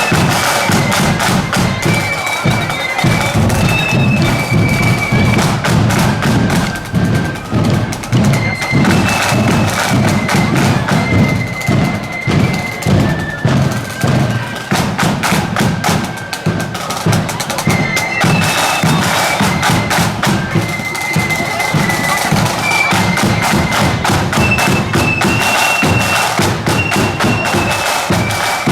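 A marching flute band playing a tune: high flutes carry a single melody line over dense, rapid snare drumming and a heavy bass drum.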